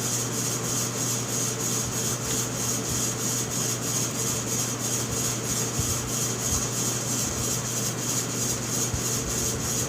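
Steady, even background noise with a low hum, unchanging throughout, with no distinct clicks or knocks of parts being handled.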